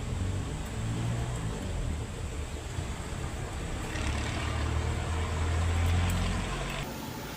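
Isuzu 10PC1 V10 diesel engine running. It grows louder about four seconds in and drops back near the end.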